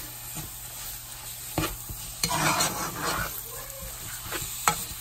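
Metal spoon stirring and scraping blended ginger through tomato paste frying in oil in a metal pot, the mixture sizzling, with a few sharp clicks of the spoon against the pot, the loudest near the end.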